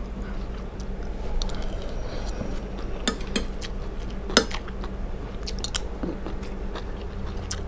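A person chewing a mouthful of rice and fried fish close to a clip-on microphone. A few sharp clicks are scattered through it, the strongest about three and four and a half seconds in, over a faint low steady hum.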